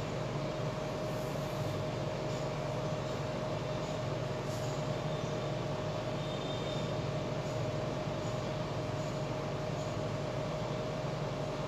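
Steady room hum and hiss, with a thin steady tone running through it and no other event.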